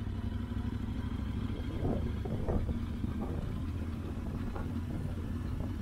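Yamaha Ténéré 700's parallel-twin engine running steadily as the motorcycle rides along.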